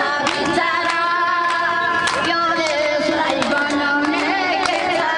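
An elderly woman singing into a handheld microphone, her voice drawn out on long held notes.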